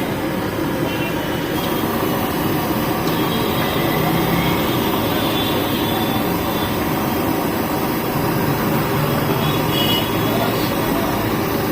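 Steady din of street traffic, with voices in the background.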